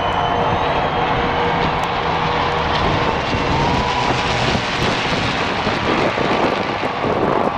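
A formation of four single-engine propeller planes passing overhead. Their engines make a steady, loud drone whose pitch slides slightly as the planes go by.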